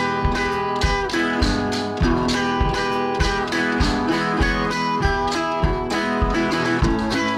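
Background music with guitar over a steady beat.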